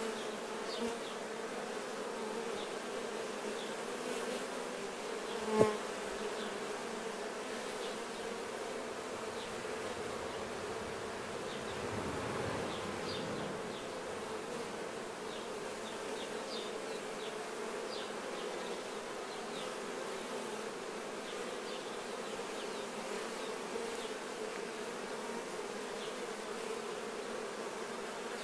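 Steady hum of many honeybees buzzing. A single sharp knock about five and a half seconds in is the loudest moment.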